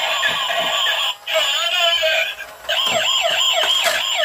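Transforming robot fire-truck toy playing its built-in electronic sounds: first a tinny electronic tune, then, from about two and a half seconds in, a warbling siren that rises and falls about three times a second.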